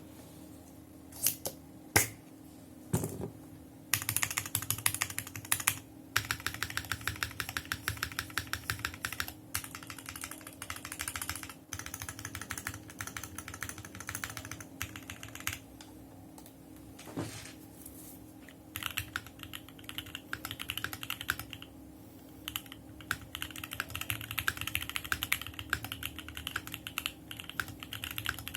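Typing on a Korno65 custom mechanical keyboard with an FR4 plate, foam and stock unlubricated switches under ABS keycaps: a few separate loud key strikes in the first three seconds, then runs of fast typing broken by short pauses.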